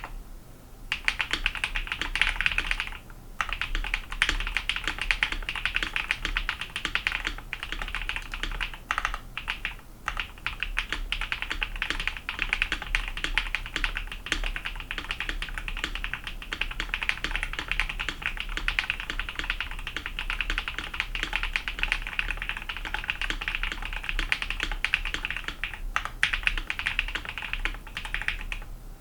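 Typing sound test on a KBD67 Lite R2 mechanical keyboard with Kinetic Labs Husky linear switches and PBT keycaps: fast, continuous key clacks starting about a second in, with a few brief pauses.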